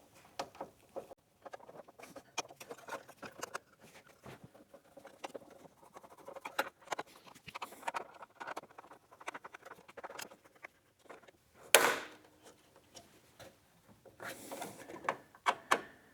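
Bolt being tightened into a 3D-printed plastic part: irregular small creaks, clicks and scraping, then a single sharp crack about twelve seconds in as the thin printed walls split, followed by more scraping.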